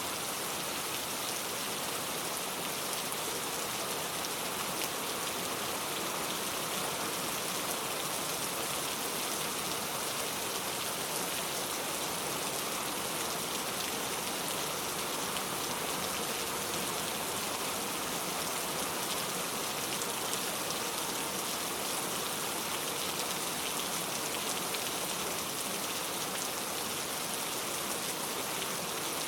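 Heavy rain falling steadily, a dense even hiss of many drops with no breaks or thunder.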